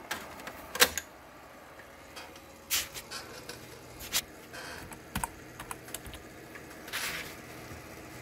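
Computer keyboard keys being pressed in scattered, irregular clicks, with one sharp loud click about a second in.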